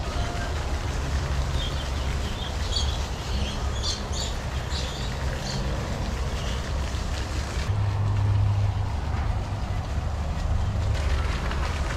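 Steady low rumble of wind buffeting a handheld camera's microphone during an outdoor walk, with a few short, high bird chirps about three to five seconds in.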